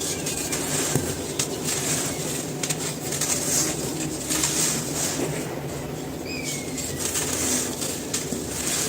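Dry cement pieces being crumbled by hand: a steady crunching and crackling with many small snaps.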